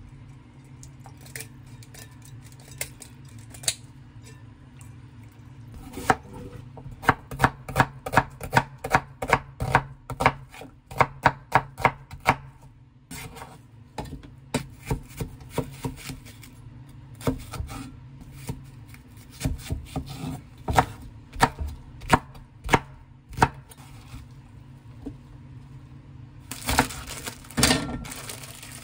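Kitchen knife chopping cabbage on a wooden cutting board: a quick run of sharp chops, about three a second, then slower, scattered cuts. Near the end, a plastic-wrapped pack of enoki mushrooms rustles as it is handled.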